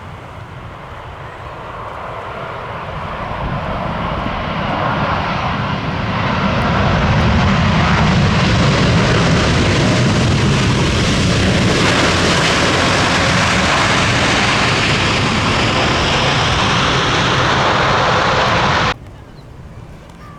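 Jet airliner's engines growing louder as the plane comes closer. The roar then holds loud and steady for about twelve seconds before cutting off suddenly near the end.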